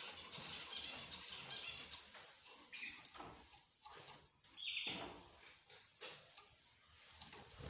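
A mixed group of pet birds (budgerigars, lovebirds, zebra finches and a canary) chirping and calling in short, overlapping notes, with a brief buzzy call about two-thirds of the way through.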